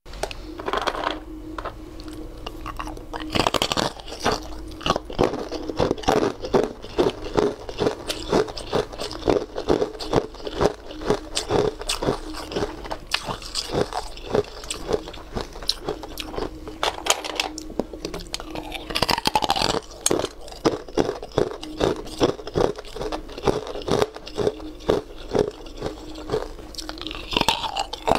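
Chunks of ice bitten and crunched between the teeth, a rapid run of sharp crunches and chewing that keeps going throughout.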